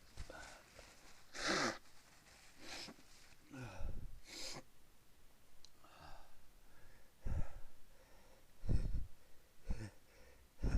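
A person sneezing over and over in a fit of sneezing: a string of short, sharp sneezes and breaths, some of them loud.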